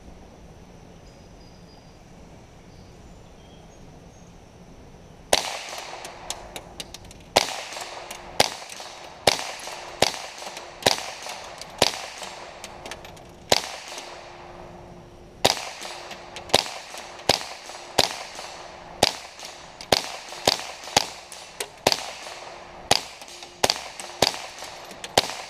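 Ruger 10/22 semi-automatic .22 rimfire rifle firing a long string of shots. After a few seconds of quiet the shots start and follow one another at roughly one a second, some in quicker pairs, about two dozen in all.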